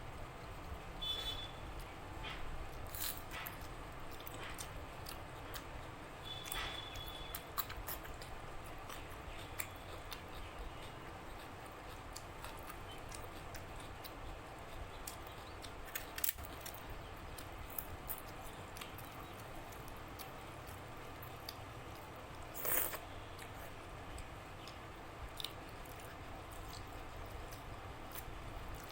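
Close-up eating sounds of a meal of rice, dal and chicken curry: wet chewing and biting, with scattered small clicks and a sharper click about 23 seconds in.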